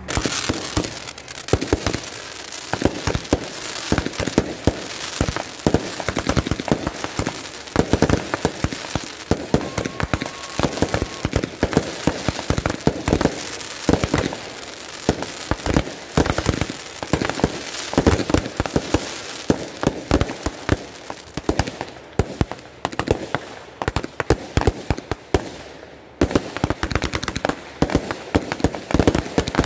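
Aerial fireworks display: a rapid, continuous run of bangs, pops and crackles as shells burst overhead.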